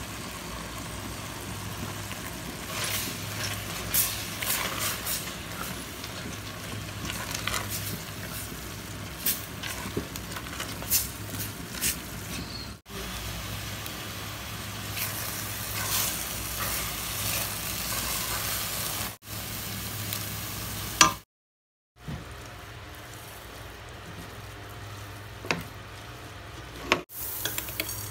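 Chopped onions frying in tomato sauce in a steel pot, sizzling steadily, with the silicone spatula scraping and tapping against the pot as it stirs. The sound breaks off abruptly a few times, with a brief silence about three-quarters through.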